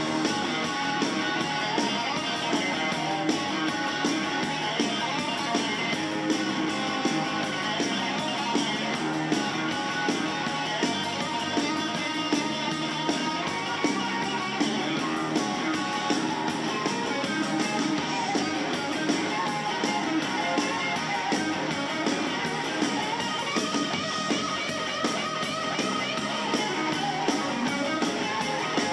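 Live band music: an electric guitar playing lead over drums and bass, with a steady beat.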